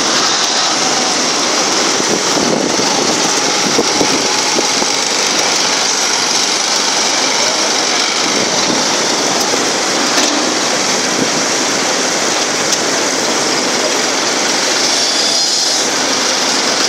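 Tractor diesel engine running steadily while it drives and works a front-loader cotton grabber.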